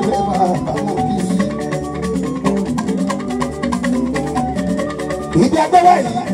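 Live Fuji band music: a fast, dense hand-percussion rhythm under keyboard and guitars, with a voice briefly coming in near the end.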